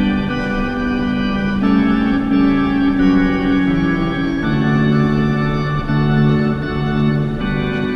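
Background music: an organ chorale playing slow, sustained chords that change every couple of seconds.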